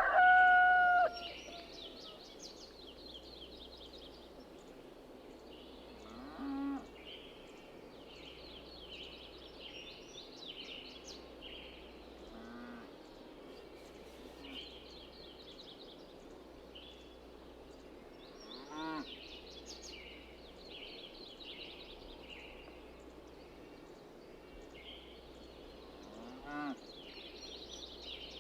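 Farmyard ambience: a rooster's crow ends about a second in, small birds chirp steadily, and cattle low briefly and distantly four times, about every six seconds, each call rising in pitch.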